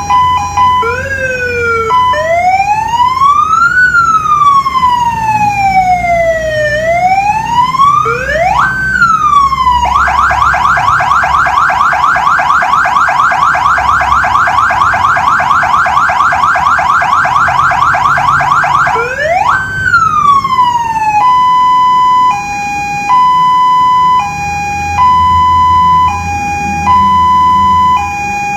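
Electronic emergency-vehicle siren stepping through its tones: a high-low two-tone, then a slow wail rising and falling, then a rapid yelp lasting about nine seconds, and near the end a high-low two-tone alternating about once a second.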